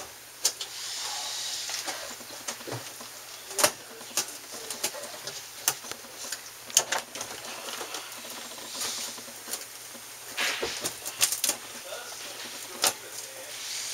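Scattered clicks and knocks with several short rasping, scraping stretches: a knife cutting and loosening the tape on air-conditioner ductwork, with tools and panels being handled.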